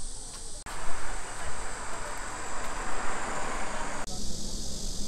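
Outdoor summer ambience: a steady high-pitched chorus of insects over a low rumble. In the middle, a louder rushing noise starts and stops abruptly and lasts about three seconds.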